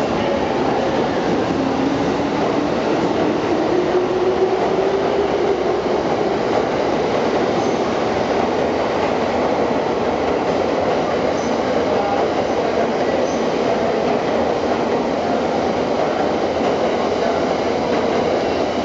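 Tokyo Waterfront Area Rapid Transit 70-000 series electric train pulling out of the station and running past, with the steady noise of its wheels on the rails. A motor whine rises in pitch over the first several seconds as the train gathers speed.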